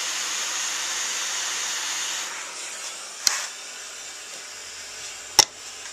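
A steady hiss that drops away about two seconds in, followed by two sharp clicks, the second louder.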